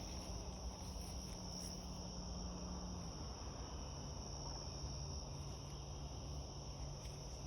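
Steady chorus of crickets: a continuous high-pitched trill, with a faint low hum underneath that drops slightly in pitch about three seconds in.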